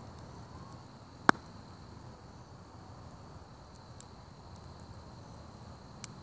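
Wood campfire burning with a low, steady rush. One loud, sharp pop comes about a second in, and two smaller pops follow later.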